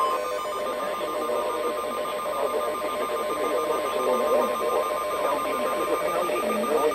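Weather-radio emergency alert tone: a steady high tone with a repeating pulsed beep, announcing a severe thunderstorm warning. The steady tone stops about six seconds in.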